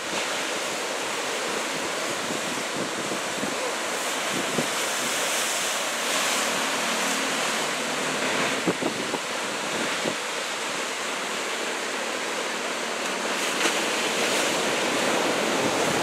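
Ocean surf from a big typhoon swell, waves breaking and washing in a steady rush of noise.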